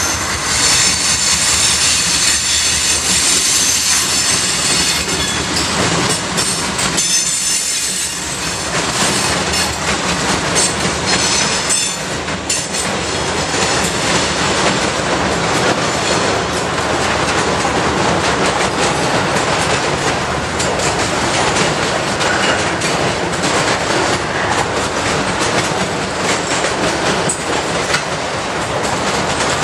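Long freight train of autorack cars rolling past close by: a steady rumble and clatter of steel wheels over the rail joints, with a thin high-pitched wheel squeal in the first few seconds.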